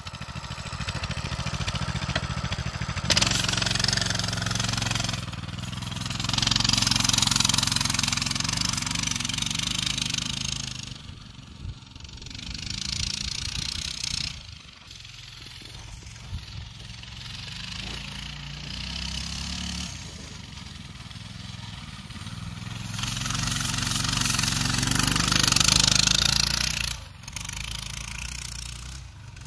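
Coleman BT200X minibike's small single-cylinder four-stroke engine running under load while ridden through snow. The engine note swells and fades repeatedly, loudest a few seconds in and again near the end.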